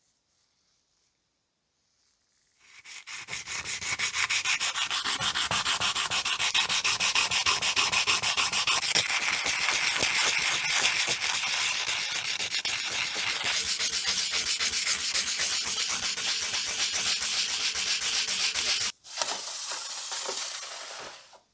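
Blue cloth rubbed briskly back and forth over the side of a hardened, blackened steel hammer head, a fast, steady scrubbing rhythm starting about three seconds in. Near the end it breaks off for a moment and a shorter, quieter rub follows.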